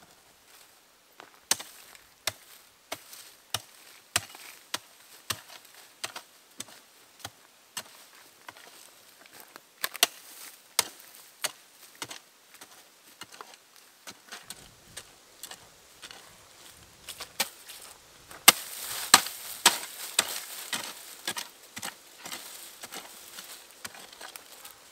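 Steady chopping strikes with a blade, about one and a half a second. From about two-thirds of the way in, the strikes turn louder over a crackling, rustling noise.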